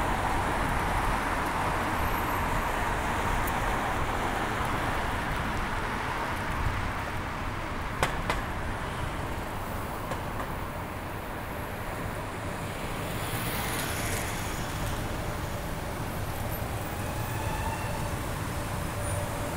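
Steady city road traffic, with cars and other vehicles passing along the street. There is a single sharp click about eight seconds in.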